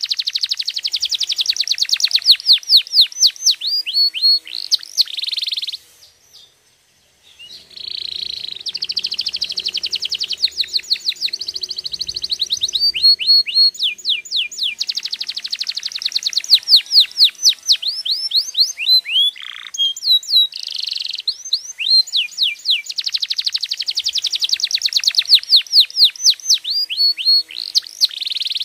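Domestic canary singing a long, loud song of fast trills and rapid runs of quick falling notes. It breaks off for about a second and a half some six seconds in, then goes on.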